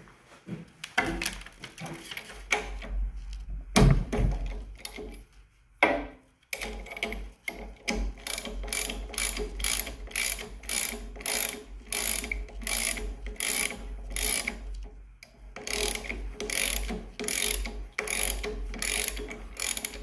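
Ratchet wrench clicking in quick back-and-forth strokes, about two clicks a second with a short pause midway, as fittings are loosened on a pressure washer's brass pump head to take off the unloader. A loud knock of metal on metal comes about four seconds in.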